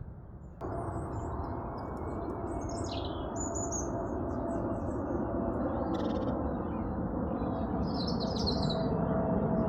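Garden birds chirping, with several short calls scattered through, including a falling call about three seconds in and a quick trill near the end. Under them is a steady low rumble of background noise that comes in abruptly about half a second in and slowly grows louder.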